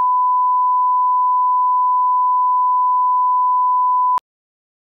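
Steady 1 kHz sine test tone, the reference tone that goes with colour bars, held at one pitch and cutting off suddenly with a click about four seconds in.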